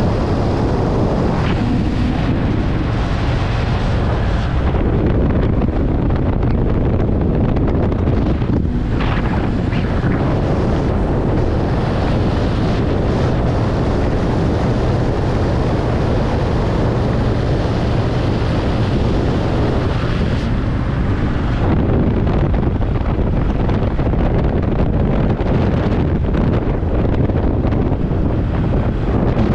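Motorcycle engine running at a steady cruise, with heavy wind noise buffeting the microphone.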